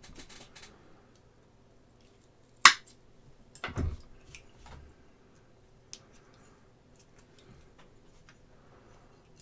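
Small handling sounds of resin model parts and tools on a work desk: a sharp click about two and a half seconds in, a duller knock about a second later, then scattered light ticks and taps.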